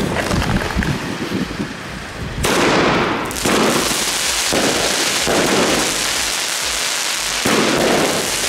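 Nico Time Rain 30 mm firework cake firing its shots. About two and a half seconds in the first shot goes off, then more follow roughly once a second, each a sudden bang that trails off over most of a second.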